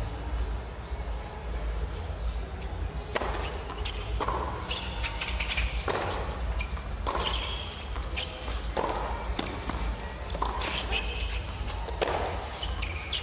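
Tennis rally on a hard court: racket-on-ball strikes and ball bounces, sharp knocks about a second apart that begin about three seconds in, over a steady low rumble of venue noise.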